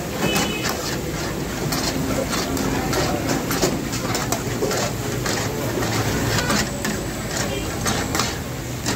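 Long metal spatula stirring and scraping chicken karahi in a wide iron karahi, clinking against the pan again and again over the sizzle of the bubbling curry and a steady low rumble.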